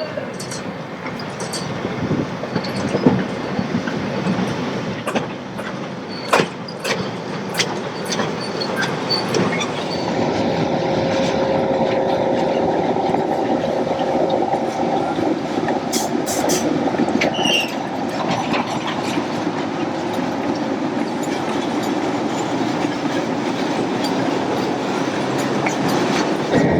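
1956 Skoda-built electric locomotive and its train running on the track: sharp clicks of wheels over rail joints through the first several seconds, then a steadier, louder rumble of rolling wagons from about ten seconds in, with a faint thin whine for a few seconds.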